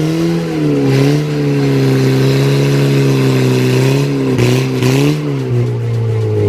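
A car engine running hard at high revs, the car being driven around: the pitch climbs at the start, dips briefly about a second in and again past the middle, rises for a moment, then holds steady.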